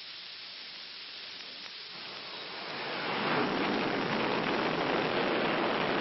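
A-7 Corsair II's jet engine running at high power, a steady rushing roar that swells louder about two to three seconds in as the engine is run up for a catapult launch.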